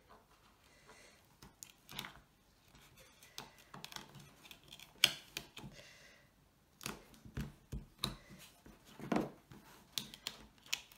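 Hands handling a cardboard box and pressing black adhesive tape into its inside corners and edges: scattered small clicks, taps and rustles of tape and card, with one sharper tap about five seconds in.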